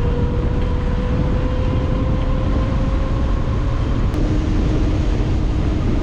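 Wind rushing over the microphone while riding a scooter at speed, with the scooter's faint whine slowly rising in pitch.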